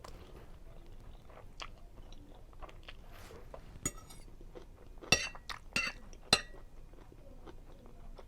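Close-miked chewing of a mouthful of seafood linguine Alfredo, with a run of sharp wet mouth clicks and smacks in the middle, about five in two and a half seconds.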